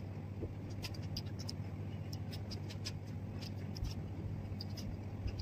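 Small scattered clicks and ticks of someone eating watermelon by hand, biting the slice and picking seeds out over a plastic plate, with a steady low hum underneath.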